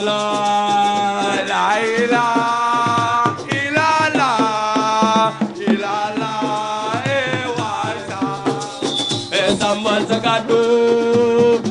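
Music: a voice singing melodic lines over a rhythm driven by a shaken rattle.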